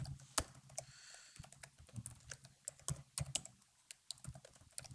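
Faint typing on a computer keyboard: scattered, irregular key clicks with short pauses between them.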